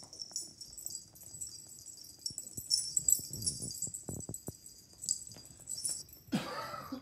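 Pet collars jingling steadily as a puppy, a dog and a cat play-wrestle on carpet, with soft scuffling. Near the end comes a short whining cry that bends in pitch.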